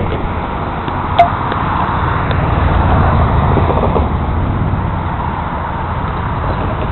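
Steady low rumble of a passing vehicle engine that swells about three seconds in and then eases, with a sharp click about a second in.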